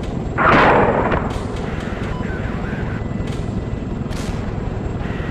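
An explosion: a sudden loud blast about half a second in that dies away within a second, over a steady low rumble.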